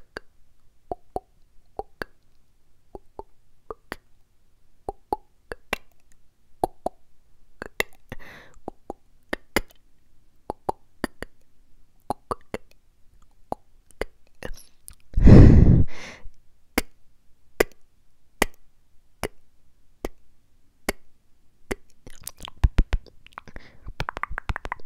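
ASMR mouth sounds made right against a small clip-on microphone: a string of wet clicks and pops from the lips and tongue, several a second. About fifteen seconds in there is one loud, brief blast on the microphone. Near the end comes a cluster of low thumps.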